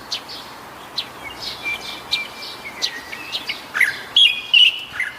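Wild birds chirping: short high chirps scattered throughout, one held whistled note about two seconds in, and a quicker cluster of louder chirps near the end.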